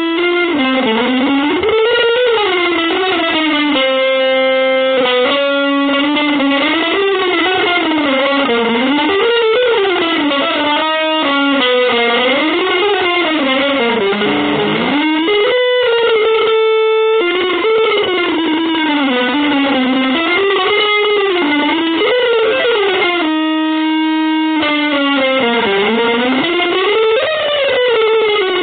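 Electric guitar playing a single melodic line of fast runs that sweep up and down in pitch, with a few held notes in between.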